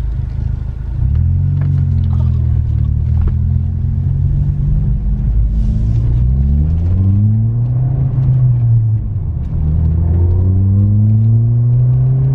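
Ford Fiesta ST's 1.6-litre turbocharged four-cylinder engine pulling away through the gears with a 3-inch non-resonated Scorpion cat-back exhaust, heard from inside the cabin. The note rises with the revs and drops back at each gear change, three times.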